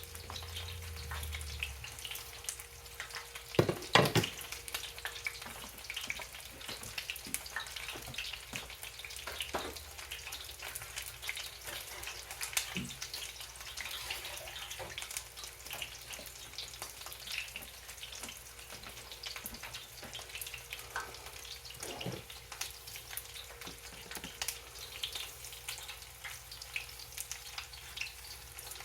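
Cornflake-breaded chicken wing drumettes frying in hot oil: a steady crackling sizzle. A few sharp knocks stand out, the loudest about four seconds in.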